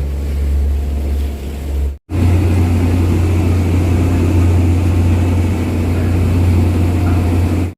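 Boat's engine droning steadily under way, a loud low hum with a rushing haze above it; it cuts out for an instant about two seconds in and carries on.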